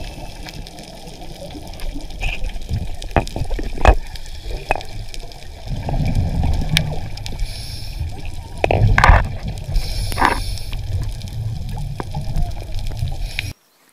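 Underwater sound through a diver's camera: a muffled rumble of water, scattered clicks, and a few louder gurgling bursts of exhaled scuba bubbles.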